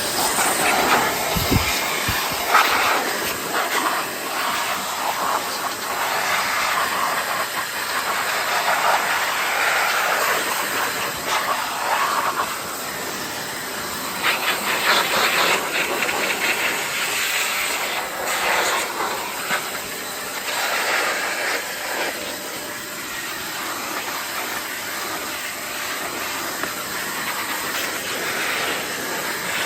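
Water spraying from a garden hose onto a stroller, a continuous hiss that swells and eases as the spray moves across the frame and fabric.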